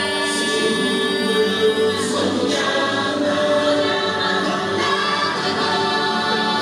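Music with a choir singing long held chords.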